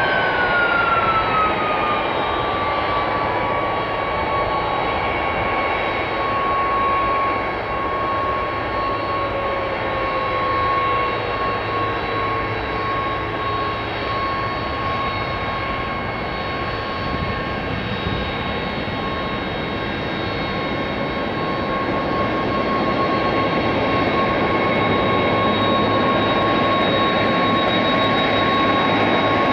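McDonnell Douglas KDC-10 tanker's jet engines running on the ground: a whine that drops in pitch over the first couple of seconds, then holds steady over a continuous rumble, while a lower tone slides slowly down over the first half.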